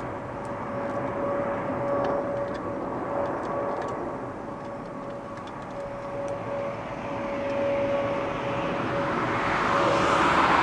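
Jet engines of a Boeing 777-200ER (General Electric GE90s) climbing away just after takeoff: a steady rumble with a held droning tone, rising and falling in waves and loudest near the end.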